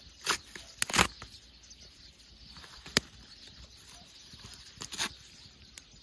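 Campfire burning with scattered sharp crackles and pops of burning wood, the loudest about a second in and at three seconds.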